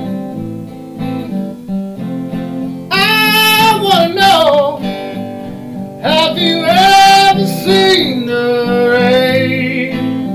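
Acoustic guitar strummed steadily while a man sings two long, held phrases over it, about three and six seconds in, each falling in pitch at its end.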